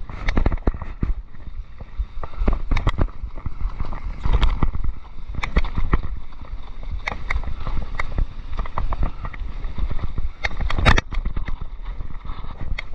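Mountain bike clattering over a rough forest trail, with irregular knocks and rattles over a steady low rumble of wind on the microphone.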